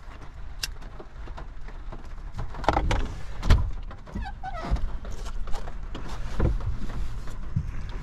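Knocks, thumps and rustling of fishing gear being handled inside a van cabin. The loudest thump comes about three and a half seconds in, with a short falling squeak about a second later.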